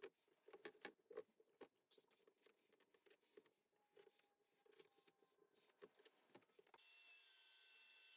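Near silence: a few faint clicks and light knocks in the first seconds, then a faint steady hum with thin steady tones from about seven seconds in.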